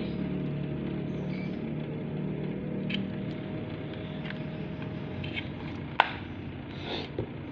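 Hand-winding wire onto a TV part: small clicks and handling noises over a steady low hum, with one sharp click about six seconds in.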